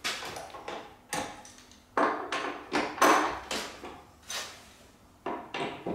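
A hand tool working the bolts of a Harrison 140 lathe's metal belt cover: a string of irregular sharp metallic knocks and clanks, about ten in all, the loudest near the middle.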